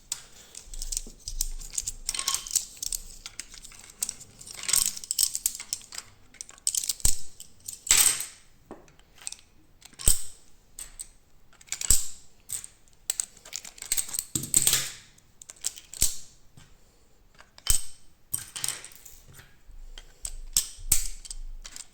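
Crossbow bolts being handled and loaded into a 3D-printed plastic magazine: irregular sharp clicks, taps and short rattles of plastic and bolts.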